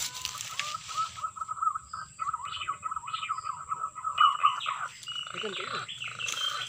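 Wild birds calling: a long, wavering whistled series, joined by higher chirps and a quick trill in the second half.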